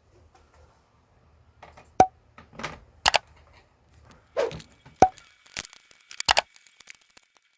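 Scattered sharp clicks and knocks of a plastic laptop bottom cover and its small screws being handled and fitted, two of them with a brief metallic ping.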